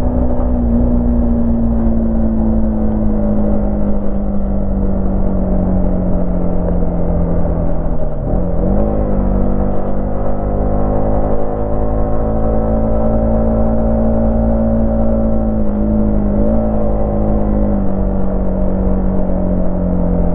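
Yamaha MT-15's 155 cc single-cylinder engine and exhaust under way, running steadily. The engine note sinks slowly over the first eight seconds, drops and recovers quickly about eight seconds in and again around sixteen seconds, climbs back and holds, then sinks slowly near the end.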